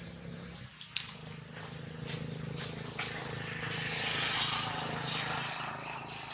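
Steady low engine hum, with a hiss that swells in the middle and then fades, and a few sharp clicks in the first half.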